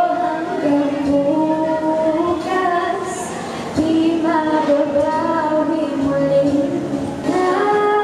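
Teenage girl singing a slow melody into a handheld microphone, holding long notes with short breaths between phrases.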